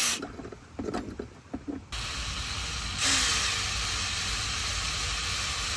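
Handheld power drill running steadily as it drills out a door panel fastener, after a few light clicks. It gets louder about three seconds in and stops abruptly at the end.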